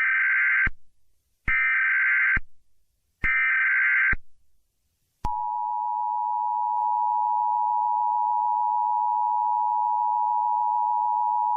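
Emergency Alert System tones: three short bursts of SAME header data tones about a second apart, then the steady two-tone EAS attention signal, which starts about five seconds in and holds.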